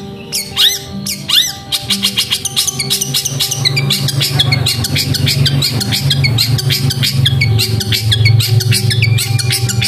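Long-tailed shrike (cendet) singing: short, arching high notes, a few a second at first, then from about two seconds in a fast rapid-fire volley, the kind of burst keepers call 'tembakan'. Background music with steady low tones plays under it.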